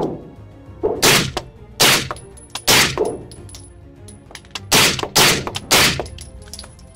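Suppressed B&T GHM9 9mm carbine firing single shots at an uneven pace: about six sharp reports, some in quick pairs, each ringing off the range walls.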